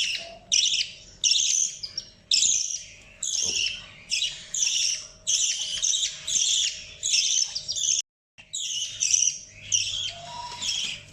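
Budgerigar calling: a steady string of short, harsh, scratchy chirps, about one and a half a second, with a brief break about eight seconds in.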